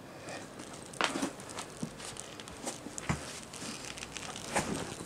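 Camera bodies and leather straps being handled and shifted on a carpet: rustling with a few scattered clicks and knocks.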